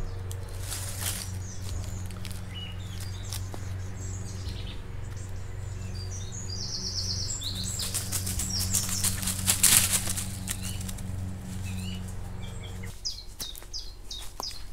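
Woodland songbirds chirping and singing in short trills and repeated calls, with footsteps and rustling through leaves that are loudest a little past the middle. A steady low hum runs underneath and cuts off suddenly near the end.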